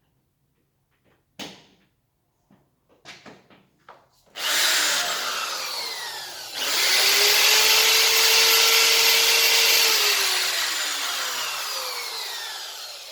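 Scheppach DM850 850-watt corded hammer drill with a variable-speed trigger, first a few light handling clicks. Its motor starts with a whine about four seconds in and begins to fall away. It is triggered again, louder, about two seconds later, runs steadily for about three seconds, then coasts down with a falling whine.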